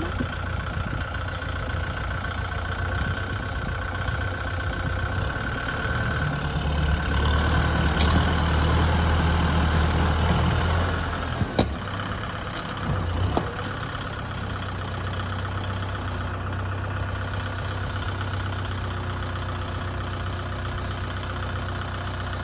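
An engine idling steadily with a low hum, rising in level for a few seconds in the middle before settling back, with a couple of sharp clicks soon after.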